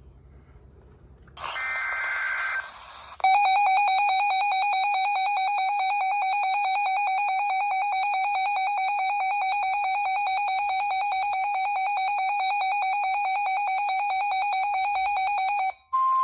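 A weather alert radio's alarm going off: a loud electronic tone with a fast warble that sounds for about twelve seconds and cuts off suddenly, signalling a newly issued severe thunderstorm warning. It is preceded about a second and a half in by a short burst of radio hiss carrying data tones.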